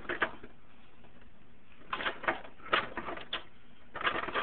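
Metal hand tools clinking and clattering as they are handled in a steel toolbox drawer: a brief rattle at the start, then a few more short bursts about two seconds in and near the end.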